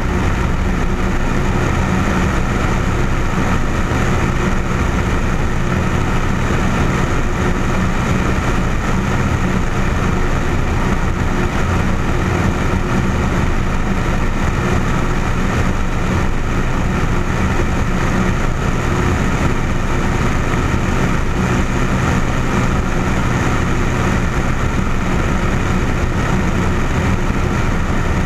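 A light aircraft's engine and propeller run as a steady, unchanging drone in flight, mixed with the rush of air past the camera mounted outside the plane.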